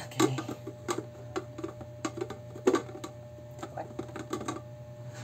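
Hard plastic parts of a centrifugal juicer clicking and knocking as they are handled and fitted together: a run of irregular taps and clunks, the loudest near the start and about two and a half seconds in. A low steady hum runs underneath.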